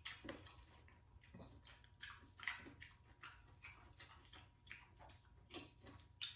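Faint, irregular wet clicks and smacks of a mouth chewing buttered corn on the cob, about two a second.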